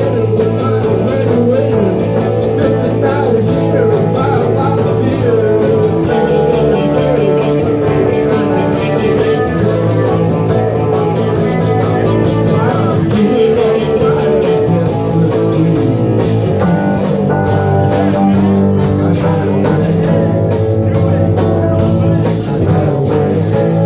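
Live band jamming, loud and continuous: electric guitar over a drum kit.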